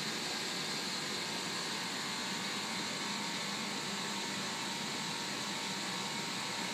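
Steady, unchanging hiss with a faint hum beneath it, from a reflux classifier test rig running, with water flowing through the column.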